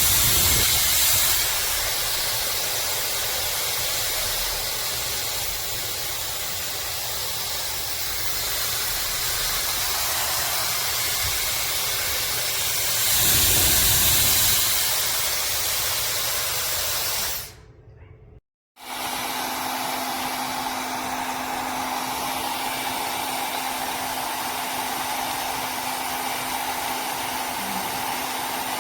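Llano 1400W brushless-motor ionic hair dryer running with a steady rush of air, swelling louder a little before halfway. It cuts out for about a second, then runs again with a steady low hum under the rush.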